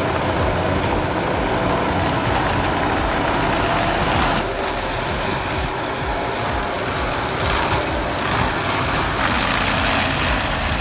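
Heavy vehicle or machine engine running steadily, with a held whine over a continuous rushing noise and low rumble.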